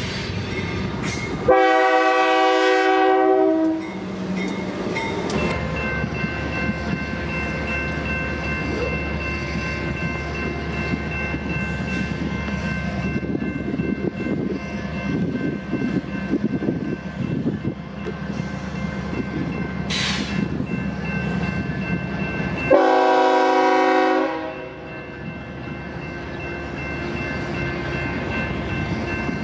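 Diesel locomotive air horn sounds two strong blasts, one a couple of seconds in and another near the end. Between them a train rumbles, and a steady high ringing carries on from the crossing.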